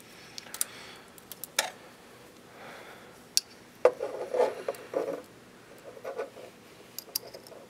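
Small clicks and rubbing of aluminium gimbal parts and a brushless motor being handled and fitted together by hand, with a busier patch of clatter about four to five seconds in and again around six seconds.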